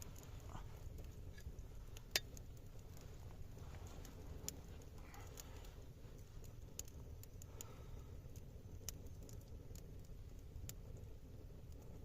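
Campfire crackling: sparse, irregular wood snaps and pops over a low steady rumble, with one louder snap about two seconds in.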